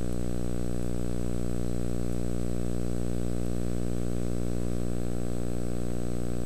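Steady low electrical hum with a buzz of many even overtones and a faint steady high whine, unchanging throughout. It is noise on the old film soundtrack, not a welding sound.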